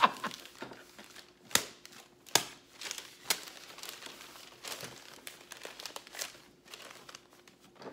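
Paper being crumpled and handled, crinkling, with about six sharp crackles at uneven spacing.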